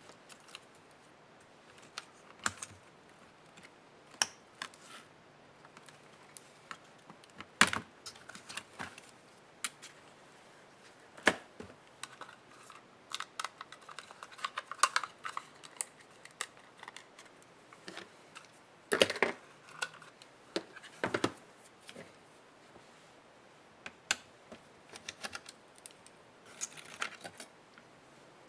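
Scattered clicks, taps and light knocks of a laptop's plastic case and small parts being handled and pried apart during disassembly. A few louder knocks stand out, and there are short bursts of rapid clicking.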